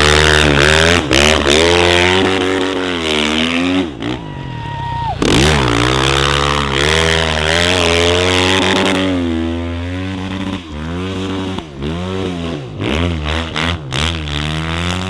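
Snow bike (dirt bike on a ski-and-track kit) engine revving hard through deep snow, its pitch rising and falling with the throttle. About four seconds in it drops off briefly before revving up again, and near the end it revs in quick short blips.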